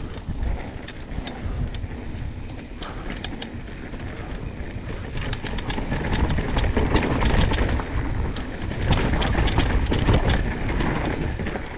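Mountain bike descending a rough dirt trail: tyres rumbling over the ground, with many sharp rattling clicks from the bike, growing louder about halfway through.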